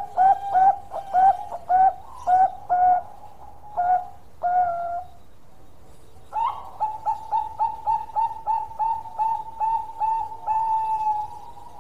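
Bangkok-strain zebra dove (perkutut) singing its long cooing song. There are two phrases of quick, evenly spaced staccato coos, each ending in a drawn-out final note. A pause of about a second and a half falls between them, about halfway through.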